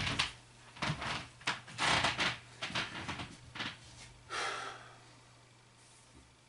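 A string of short breaths and noises from a person moving about in a small room, over a steady low hum. A longer breath-like hiss comes about four and a half seconds in.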